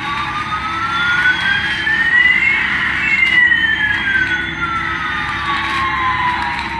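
Electronic sound effect of a battery-powered toy Airbus A380 airliner: two slow gliding tones, one rising and one falling, that cross about two and a half seconds in, then stop abruptly.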